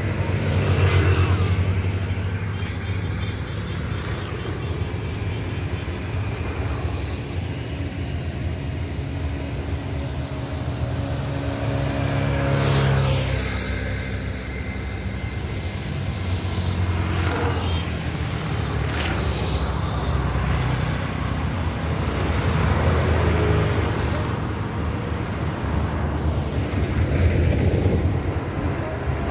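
Road traffic: motorcycles and cars passing one after another, each swelling and fading, over a steady low rumble.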